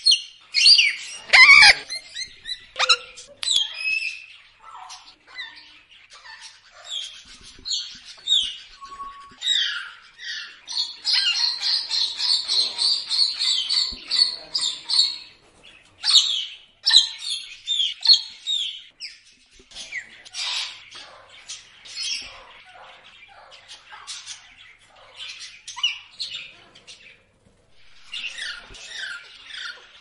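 Several birds chirping and calling, many short whistled notes that rise and fall in pitch, with a loud call sweeping down in pitch about a second and a half in. A continuous rapid buzzing trill runs for about four seconds near the middle.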